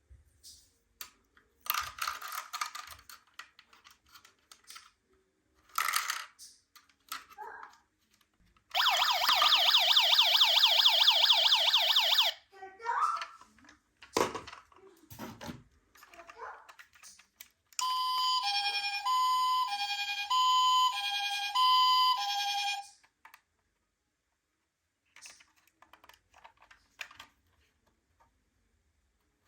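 Toy ambulance minicar's electronic siren: a fast warbling siren for about three seconds, then later the two-tone hi-lo "pee-poh" of a Japanese-style ambulance, switching pitch about once a second for about five seconds. Scattered clicks and rattles come before and between the two sirens.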